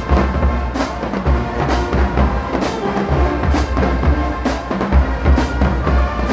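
Marching band playing, with horns over heavy bass drums and a cymbal crash about once a second.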